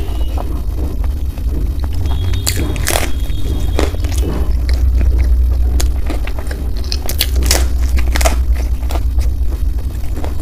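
Close-up chewing and crunching of fried street food, with many short crisp crunches and mouth clicks, over a steady low rumble.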